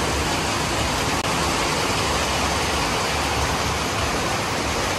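Heavy tropical rain pouring down steadily as a dense, loud hiss.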